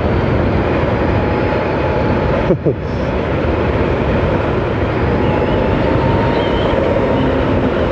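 Wind rushing over a helmet-mounted microphone on a Harley-Davidson LiveWire electric motorcycle accelerating to about 75 km/h, with a faint steady motor whine beneath it and a brief lull about two and a half seconds in.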